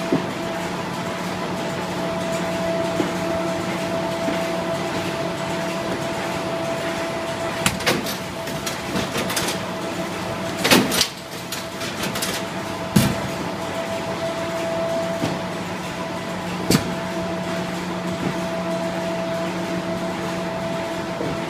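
Dingshung NIKKO Legato box folder-gluer running with a steady hum, broken by a few sharp clacks at irregular moments, the loudest about eleven seconds in.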